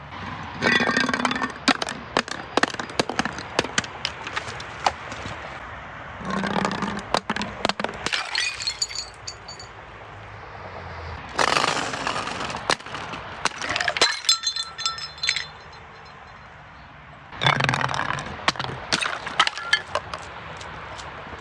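Glass bottles breaking as they are crushed, four times about five or six seconds apart. Each time there is a burst of cracking, then a run of crackling and tinkling shards.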